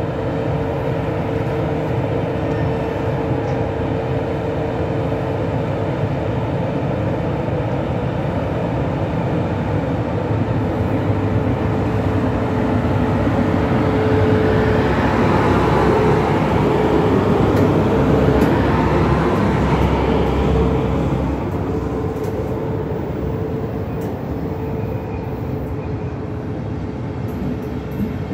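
DB class 111 electric locomotive pulling a train of n-Wagen coaches out of the station, with a steady tone over the running noise. It is loudest a little past halfway as the locomotive goes by, and the coaches then roll past.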